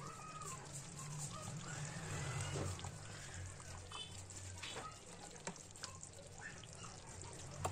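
A metal ladle stirring chicken curry in a pan: the thick gravy sloshing and simmering, with a few light clinks of the ladle against the pan.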